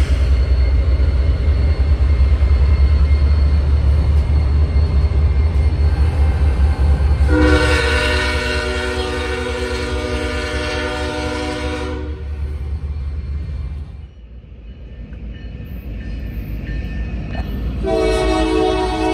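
Union Pacific diesel locomotives running past with an intermodal train: a loud, steady engine rumble. A locomotive air horn sounds one long blast of about four seconds, starting some seven seconds in, and a second horn blast begins near the end as locomotives approach.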